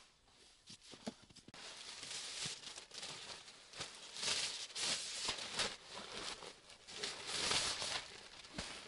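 Rustling and crinkling of a folded, padded tent floor mat being handled and lifted, in irregular bursts. It is loudest about halfway through and again near the end, after a quieter start with a few soft knocks.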